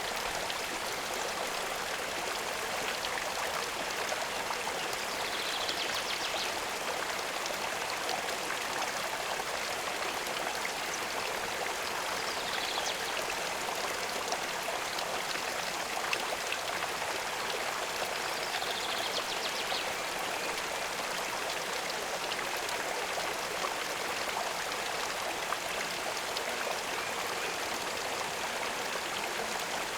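Steady running water, like a stream or a small inflow trickling into the pond. Three brief high chirps sound over it, about six seconds apart.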